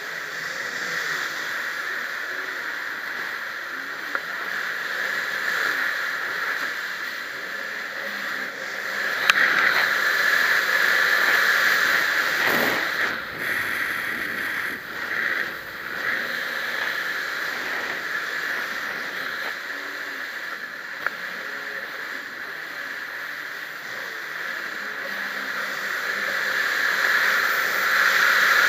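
Jet ski running at speed across open water, heard from on board: a steady rush of water, engine and wind on the microphone. Near the middle the sound breaks up unevenly as the craft hits spray, and there are two sharp clicks.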